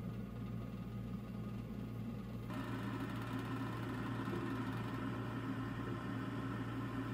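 White Whale electric oven running at 200 °C: a steady motor hum over a low drone, which turns brighter and a little louder about two and a half seconds in.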